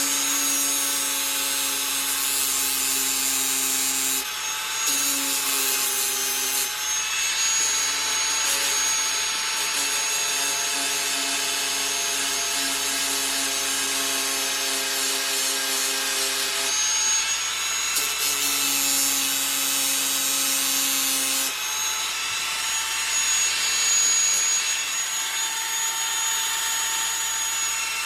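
Power tools running on a construction site: a steady motor tone over a hiss of cutting or grinding. The motor tone breaks off and returns every few seconds.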